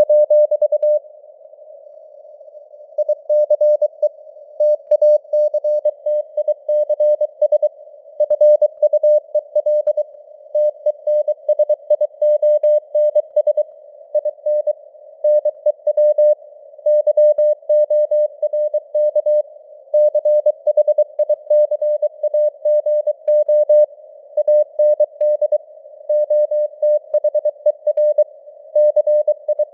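Morse code (CW) being sent at 23 words per minute: a single mid-pitched beep keyed on and off in dots and dashes, spelling out text. A faint simulated radio noise hiss sits around the tone, and there is a short pause in the keying about a second in.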